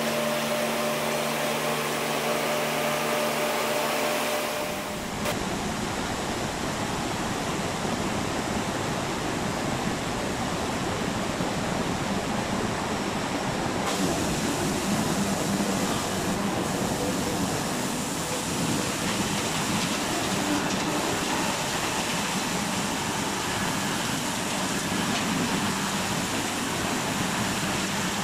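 LogRipper-300 scragg mill running: a steady motor hum, changing about five seconds in to a louder, rougher, continuous noise as a log is fed through and sawn.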